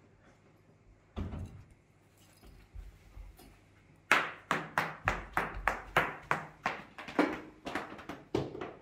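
Quick footsteps slapping on a hard tiled floor, about three sharp steps a second, starting about four seconds in, after a single knock about a second in.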